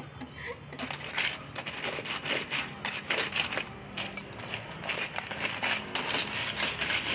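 Cockle and crab shells clattering, clicking and crunching against each other and the wok as a metal spatula stirs the sauced seafood and a hand picks through it. There are many irregular clicks and scrapes from about a second in.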